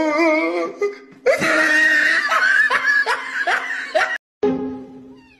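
Background music with a person laughing over it.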